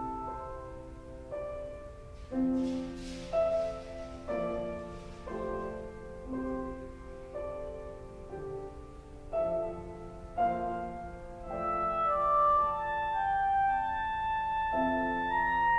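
Electronic wind instrument (EWI) with an oboe voice playing a lyrical classical melody over piano accompaniment.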